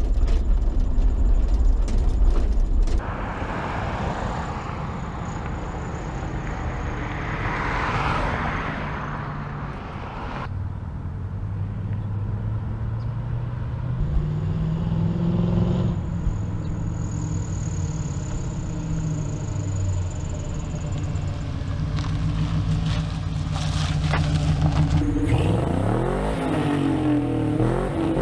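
1967 Chevrolet C10 pickup's LS1 V8 running while driving, its pitch rising near the end as it revs up and accelerates. The engine is slow to rev and has little power off the bottom end.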